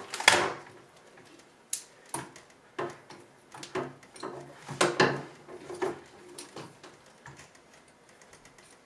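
Hands handling headset cables and a small clear plastic bag of parts in a zippered carrying case: irregular rustles, clicks and light knocks, the loudest just after the start.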